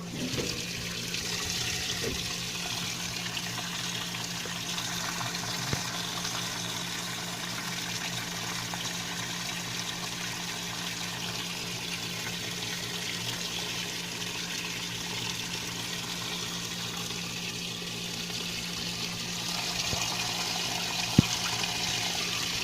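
Magic Chef Performa washing machine filling with water: a steady rush of water into the tub over a low steady hum, with one sharp click near the end.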